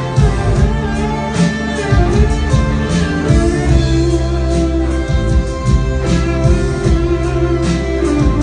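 Live band playing amplified rock music through a PA, with guitar chords over bass and a steady drum beat.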